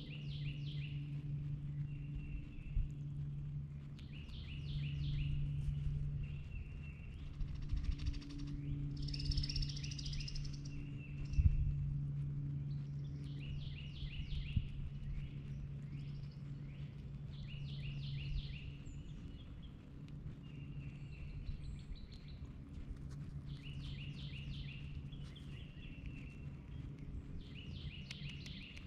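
Backyard songbirds singing in repeated short trilled phrases, over a steady low hum. A single thump about a third of the way through.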